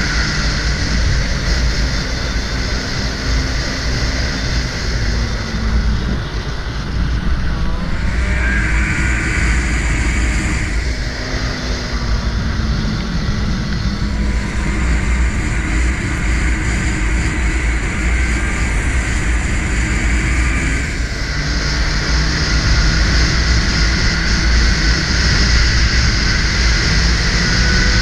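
Snowmobile engine running as the sled travels along a trail, its pitch sliding up and down with the throttle, under a steady low rumble of wind on the helmet microphone.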